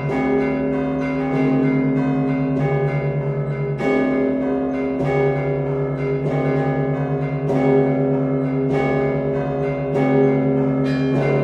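Russian Orthodox church bells of the Danilov Monastery rung in a festive zvon: a deep bell is struck about every second and a quarter, and smaller bells chime quickly over it in a repeating pattern.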